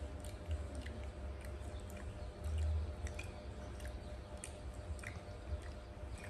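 Soft wet clicks and smacks of a woman's mouth eating rice fed to her by hand, over a steady low rumble that swells briefly about halfway through.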